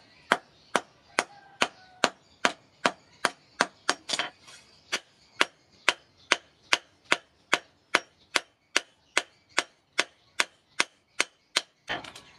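Hand hammer striking a red-hot katana blade on a steel post anvil, with sharp blows in a steady rhythm of a little over two a second: the blade being forged hot.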